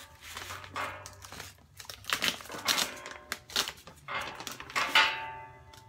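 Plastic hardware bag crinkling in several irregular bursts as it is handled and rummaged through.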